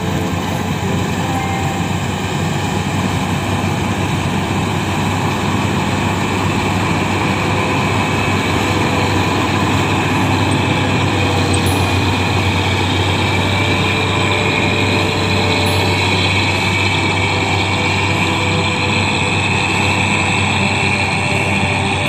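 New Holland 8080 combine harvester running steadily under load while cutting and threshing wheat: a continuous diesel engine drone with the clatter and rush of the threshing works, getting a little louder over the first several seconds.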